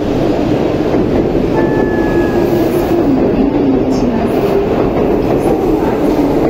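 Shinkansen bullet train rolling past along the platform: a loud, steady rumble of wheels and running gear, with a brief high whine about two seconds in.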